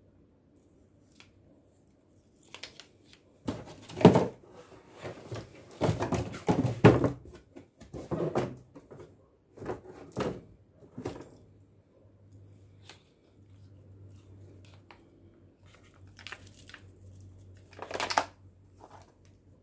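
Hard plastic steam-mop attachments being handled and set down: irregular knocks, clicks and rustling in a busy stretch through the first half, then another short burst near the end.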